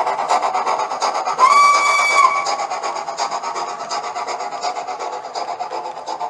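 DCC sound decoder playing a recorded steam locomotive running, with fast, even chuffing. A single-pitched whistle sounds for about a second, starting about a second and a half in. The chuffing then slowly grows quieter.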